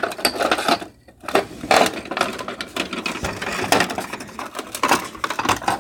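Loud rustling and clattering handling noise close to the phone's microphone: a dense run of scrapes and knocks that starts suddenly and keeps going with brief pauses.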